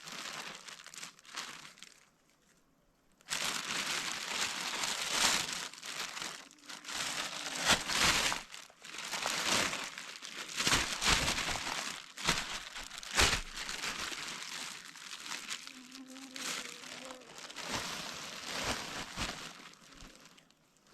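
Irregular rustling and crinkling, as of something crumpled or handled close to the microphone, with a short pause about two seconds in and frequent louder crackles after it.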